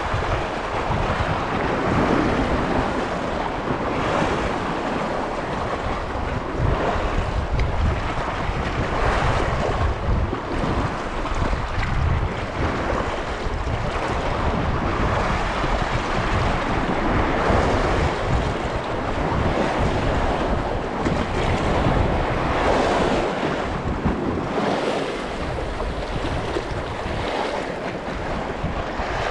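Wind buffeting the microphone over the steady wash of choppy sea waves.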